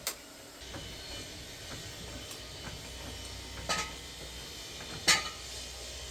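Hydraulic garage jack being worked to lift a car: a steady low rumble with three sharp metal clanks, one at the start, one past the middle and the loudest near the end.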